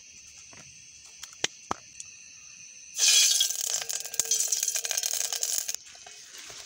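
Liquid poured into a stainless-steel cooking pot: a loud splashing rush that starts suddenly about three seconds in and cuts off about three seconds later.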